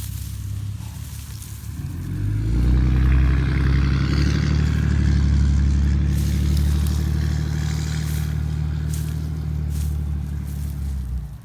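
A motor vehicle's engine running close by. It swells up about two seconds in, holds a steady low drone for several seconds, then stops abruptly near the end.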